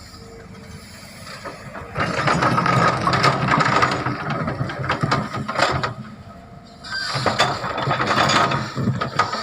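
Heavy construction machinery at work: two loud stretches of grinding, rattling metal noise with squealing, one starting about two seconds in and another near seven seconds, over a quieter steady machine sound.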